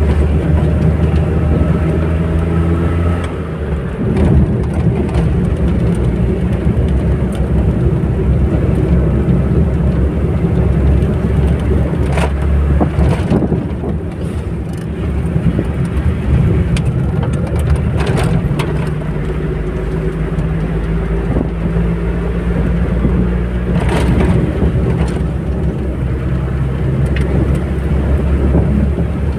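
Engine hum and road noise heard from inside a moving vehicle on a highway, with a steady low engine tone for the first few seconds giving way to a broader rumble. A few short knocks are scattered through it.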